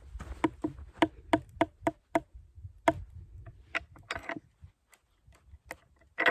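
Metal clinking of a box-end wrench on a screw-in gate anchor as it is turned in: sharp clicks about three a second, growing sparser after about three seconds.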